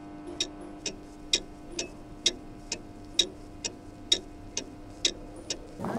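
Clock ticking briskly, about two ticks a second, over a steady droning tone; both cut off abruptly near the end.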